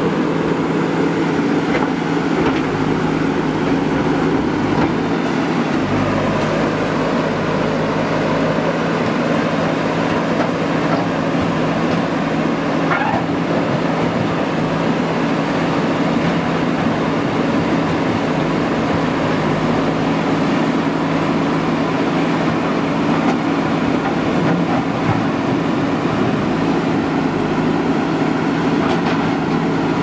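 JCB 3DX backhoe loader's diesel engine running at a steady speed as the machine drives slowly along a rocky track, with a few faint clanks from the machine.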